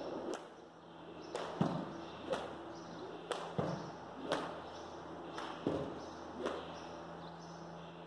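A series of sharp slaps and dull thuds at uneven intervals, about ten in eight seconds, over a steady low hum.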